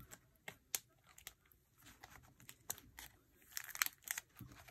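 Plastic binder pocket pages being handled: faint crinkling with scattered light clicks, and a busier patch of crinkling near the end.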